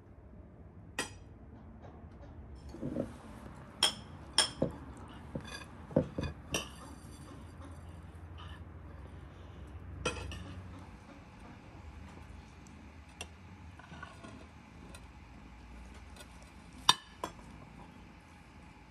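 Metal spoons clinking against porcelain plates at a meal: scattered sharp clinks, a cluster about four to six seconds in and the loudest near the end, some ringing briefly.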